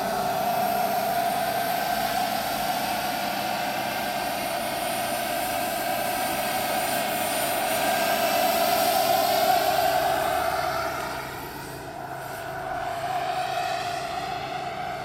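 JetCat PHT3 turbine of a 1:4 scale Eurocopter EC 145 RC model helicopter in flight: a steady turbine whine with rotor noise. It gets louder toward the middle, falls off suddenly about eleven seconds in, then partly comes back.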